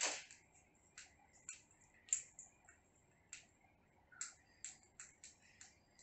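Two ring-necked parakeets making about a dozen quiet, sharp clicks and taps at irregular intervals, with no calls.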